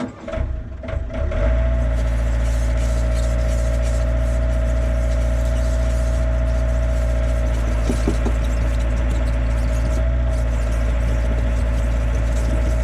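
The Yanmar B50-1 mini excavator's diesel engine starting up, rough for the first second or so, then running steadily with a whine over it. There are a few clanks a little past the middle.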